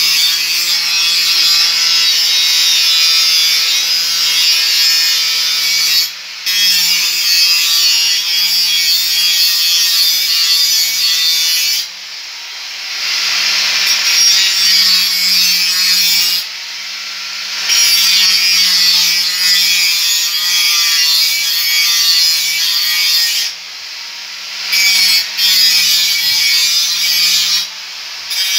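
Angle grinder with a cut-off disc cutting through a metal pipe: a loud, harsh grinding hiss over the motor's hum. Several times the disc eases off the metal for a second or so, leaving the motor spinning freer and quieter, then bites in again.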